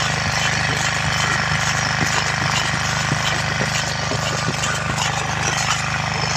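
A 9 hp self-start engine driving a 5 hp air compressor, running steadily with a fast, even chugging and a steady hiss above it.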